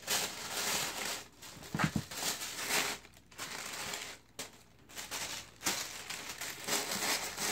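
Tissue paper rustling and crinkling as it is handled and folded back into a shoe box, in uneven bursts with short pauses.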